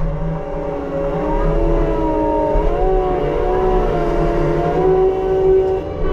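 Case 620B skid steer running with its Shearex mulching head, a steady machine drone whose pitch wavers slightly up and down.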